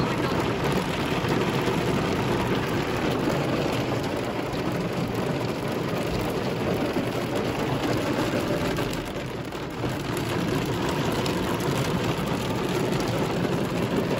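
Heavy rain pelting a car's windshield and body, heard from inside the cabin: a steady dense hiss that eases briefly about nine seconds in.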